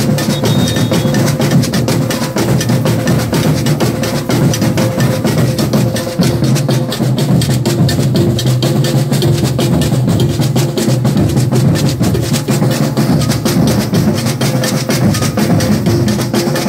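Maracatu drum ensemble playing a steady, dense rhythm: deep bass drums under a fast pattern of sharp, clicking strokes.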